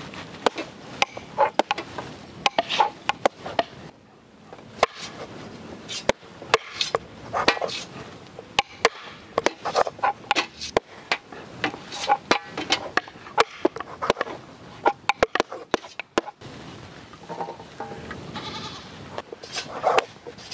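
Kitchen knives chopping down onto wooden cutting boards as the crusts are trimmed off slices of bread: an irregular run of sharp knocks, with some bleat-like calls in between.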